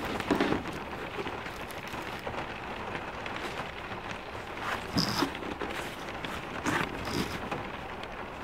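Steady rain falling, with a few light taps and clinks as small metal-capped spice bottles are handled in a canvas pouch.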